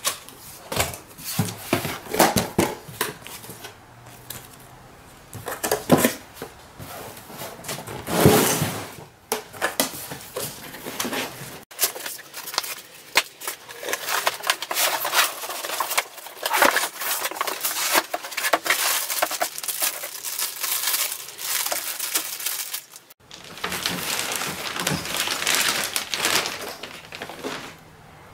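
Cardboard radiator packaging being opened and handled: flaps and an inner box scraping, sliding and knocking. Near the end there is crinkling plastic wrap as an aluminium radiator is lifted out.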